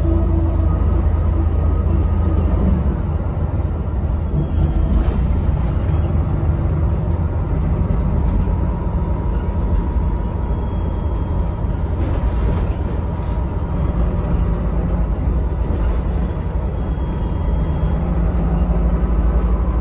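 Van Hool newA360 city bus heard from inside the cabin, its MAN D2866 straight-six diesel running with a steady low rumble, with a few short knocks and rattles from the body.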